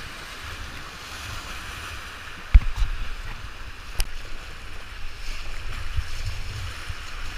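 Whitewater rapids rushing steadily around a raft, with low wind buffeting on the microphone. A sharp knock about two and a half seconds in, the loudest sound, and a smaller one about four seconds in.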